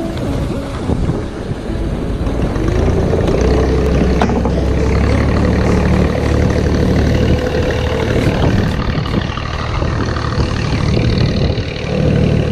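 Boat engine running steadily with a low drone; its pitch rises about three seconds in and then holds.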